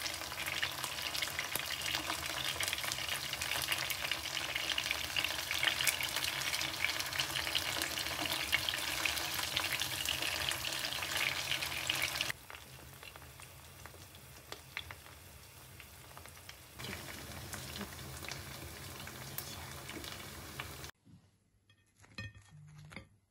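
Breaded chicken nuggets sizzling and crackling as they shallow-fry in oil in a nonstick frying pan, stirred and turned with a wooden spoon and a spatula. The frying drops quieter about halfway through and stops near the end, leaving a few faint clicks.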